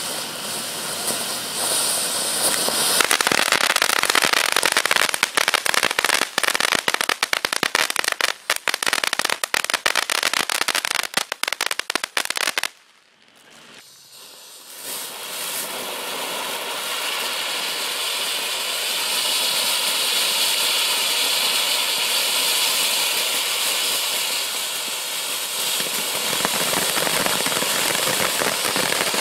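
Firework fountains burning. The first hisses and then crackles densely from about three seconds in, which fits its crackling-flower stage, until it stops abruptly. After a short lull a second fountain ignites and sprays with a steady rushing hiss.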